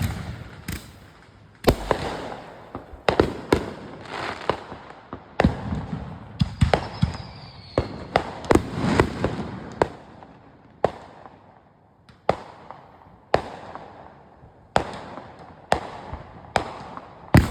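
Backyard consumer fireworks going off: a run of sharp bangs every second or two with crackling in between, and a faint high whistle about seven seconds in.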